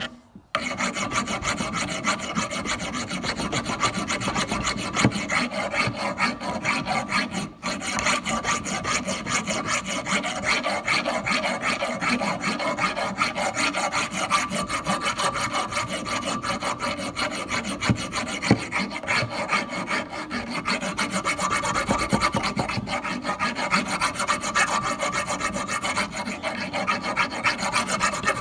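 Hand file rasping across the steel of an axe head clamped in a vise, in fast back-and-forth sharpening strokes, with a brief pause about seven seconds in.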